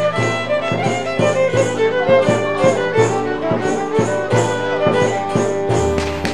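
Music with a melody line over a steady beat.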